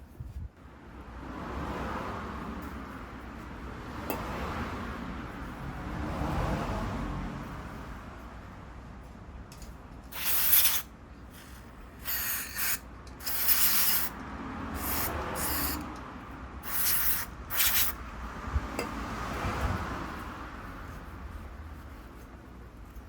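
Parts of a small generator carburettor being rubbed and handled, then about six short, loud hissing sprays, each under a second, as the carburettor parts are cleaned with spray.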